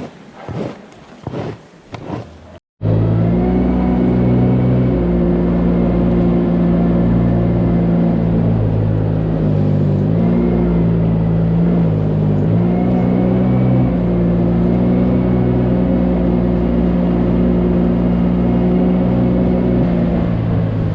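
A few sharp knocks, then, after a sudden cut, a loud heavy engine running steadily, its pitch stepping up and down a few times.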